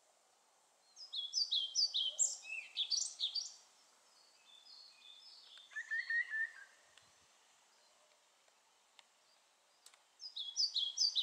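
Male European pied flycatcher singing: a phrase of repeated high two-part notes about a second in, a softer passage in the middle, and the next phrase starting near the end.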